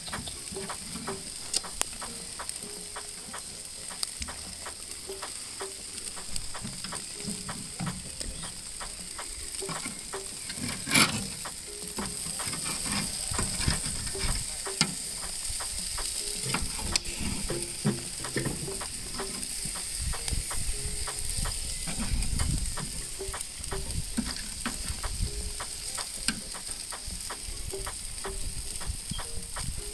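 Seasoned chicken and turkey wings sizzling on a barbecue grill, a steady hiss with many irregular crackles and pops of spitting fat; one louder pop about eleven seconds in.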